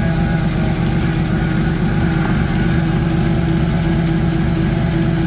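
Hyster forklift engine running at a steady idle, just after being jump-started from a dead battery, and still running as the jump clamps come off.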